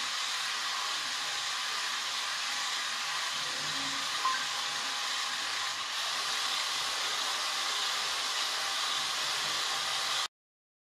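Steady hiss with a brief high blip about four seconds in; it cuts off suddenly near the end.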